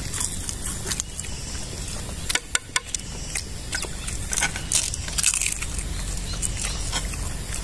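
Eating sounds: metal tongs clicking and scraping on a clay plate, mixed with the crunch of crispy fried martabak being chewed, as scattered short clicks and crackles.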